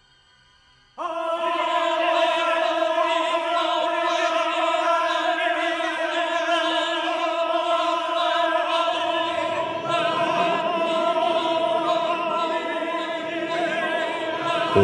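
Soundtrack music: operatic singing with long held, wavering notes, starting suddenly about a second in after near silence. A deeper accompaniment joins past the middle.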